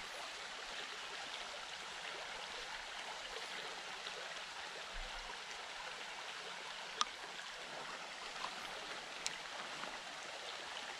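Shallow creek riffle running over gravel: a steady rush of moving water, with a couple of faint clicks about seven and nine seconds in.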